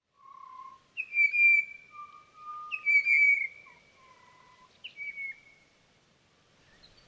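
A bird's clear whistled song: a handful of long, pure notes that alternate between a low pitch and one roughly an octave higher, some ending in a slight downward slur, dying away about six seconds in.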